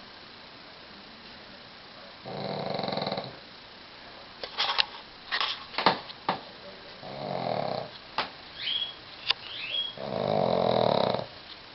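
Pug snoring: three long rasping snores about four seconds apart. Between the second and third snores come a few sharp clicks and short high squeaks.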